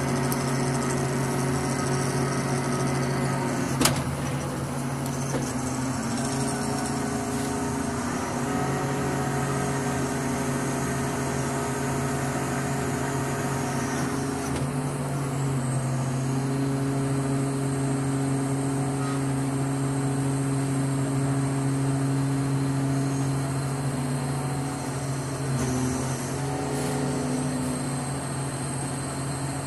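Mobile crane's diesel engine running steadily under load while hoisting, heard from inside the cab; its pitch steps up a little about halfway through and shifts again near the end. A sharp click about four seconds in.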